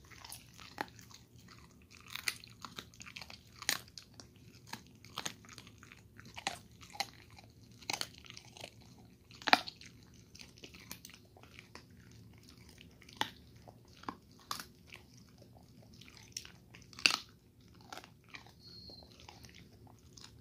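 A dog crunching and chewing on a chicken foot, with irregular sharp crunches about one or two a second. The loudest crunches come about halfway through and again near the end.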